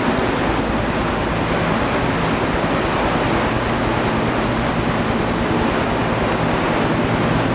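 Steady, even roar of a large terminal waiting hall's ambience, with a low hum underneath.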